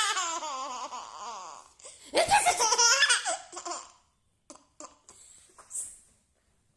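Baby laughing in two bouts of high, wavering giggles, the second starting about two seconds in, then a few faint clicks as it stops.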